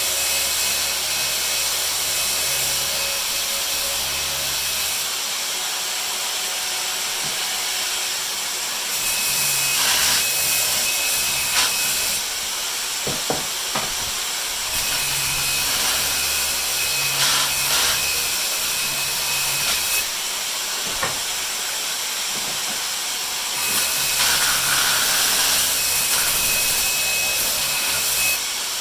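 Electric power tool working wood in runs of a few seconds, stopping and starting about four times over a steady hiss, with a few sharp knocks between runs.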